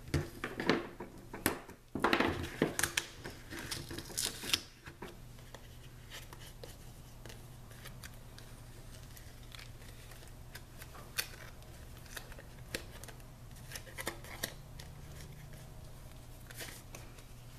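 Washi tape being laid on and pressed onto patterned cardstock: a cluster of light rustles, taps and clicks in the first five seconds, then only occasional soft clicks over a low steady hum.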